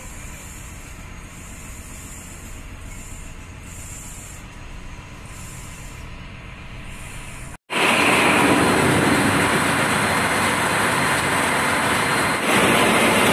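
A low steady hum with soft hissing pulses about once a second. After a sudden cut just over halfway through, the loud, steady running noise of a ship's engine-room machinery.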